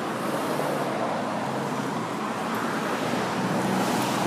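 Road traffic: cars driving past on a multi-lane street, a steady rush of tyre and engine noise that swells slightly near the end as a car passes close by.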